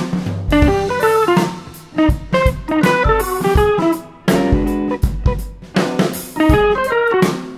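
Background music: plucked guitar playing a stepping melody over a drum kit.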